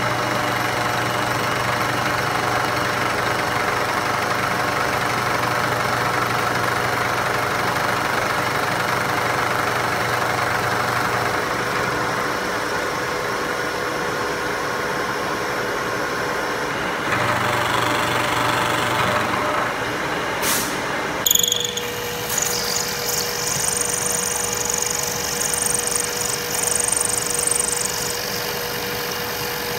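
Milling machine cutting aluminium: the spindle runs steadily as a face mill takes a pass across the block. About 21 seconds in the sound changes to a different cut, a chamfering cutter on the part's edges, with a steady high whine.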